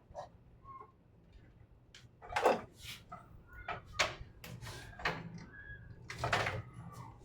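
Scattered handling noises: short clicks, knocks and scrapes, with two louder scraping sounds about two and a half and six and a half seconds in, over a steady low hum.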